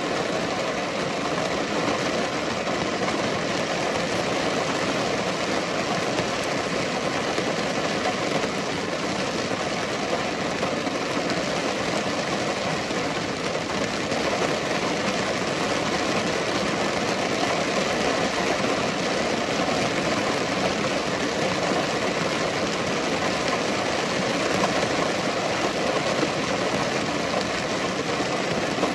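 Steady rainfall: an even hiss of many raindrops, unchanging throughout.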